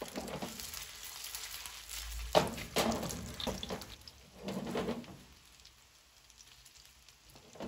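Chicken meatballs sizzling as they are sealed in hot oil in a non-stick frying pan. A spatula knocks and scrapes against the pan a few times as they are turned. The sizzle fades quieter near the end.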